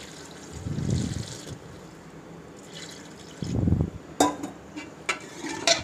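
Water poured into a steel cooking pot of browned masala, taro and mutton, running for about the first second and a half. Near the end a metal spoon knocks sharply against the pot twice.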